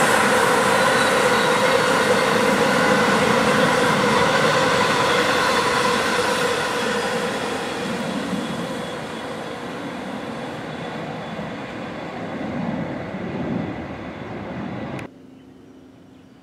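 Amtrak passenger train of Amfleet II coaches behind an ACS-64 electric locomotive rolling past and moving away, its wheels running on the rails, slowly fading. The sound cuts off suddenly about fifteen seconds in.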